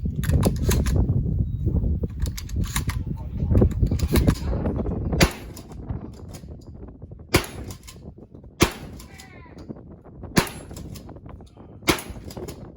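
Gunshots: a quick run of shots over a low wind rumble on the microphone for about the first five seconds, then four single shots about a second and a half apart.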